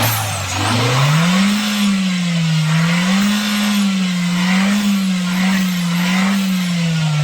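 Nissan Juke engine revved up and held at raised revs, the pitch swelling and dipping about four times, then falling back toward idle near the end.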